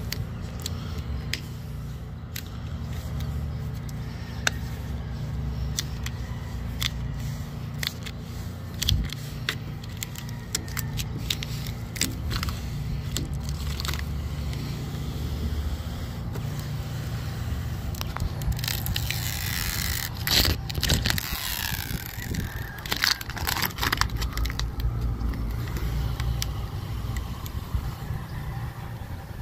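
Protective plastic film being peeled off a tinted acrylic window visor: scattered crackles and clicks, with a dense burst of crinkling about 19 to 21 seconds in and again around 23 seconds. A steady low rumble runs underneath.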